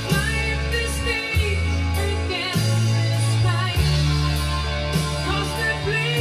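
A rock song with singing, guitar, held bass notes and a drum hit about every second, played back from cassette on a Tandberg TCD 440A deck that has been fully restored after chewing tape and suffering wow and flutter.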